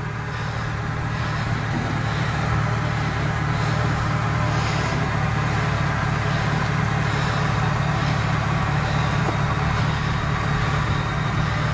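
Hummer H2's V8 engine running at low revs as the truck crawls over an off-camber sandy trail: a steady low drone that grows a little louder over the first couple of seconds, then holds.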